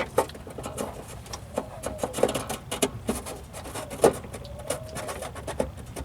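Plastic turn-signal bulb socket being twisted and pushed into its lamp housing: irregular clicks, taps and rubbing as its tabs are worked against the slots, the loudest click about four seconds in.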